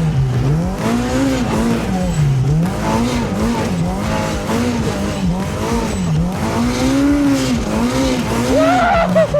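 Turbocharged Polaris RZR Pro R side-by-side's engine revving up and down over and over, its pitch rising and falling about once or twice a second as the throttle is worked on and off in deep snow.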